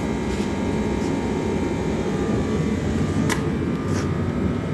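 Steady low mechanical drone of a running machine, with a couple of faint clicks near the end.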